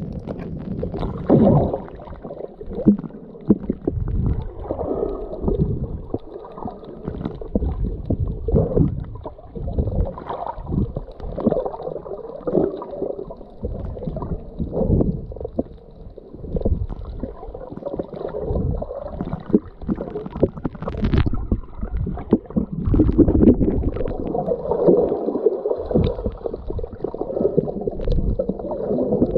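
Muffled underwater water noise picked up by a submerged camera: rushing and gurgling water coming in irregular surges about once a second as the snorkeler swims, with a few sharp clicks.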